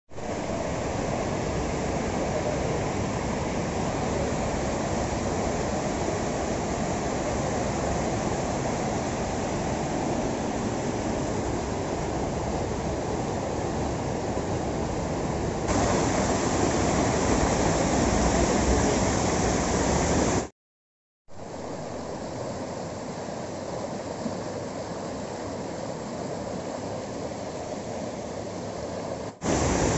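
Muddy floodwater from heavy rain rushing in spate, pouring over stone steps and surging along a flooded lane: a steady, loud rush of water. It grows louder about halfway through and drops out to silence briefly about two-thirds in.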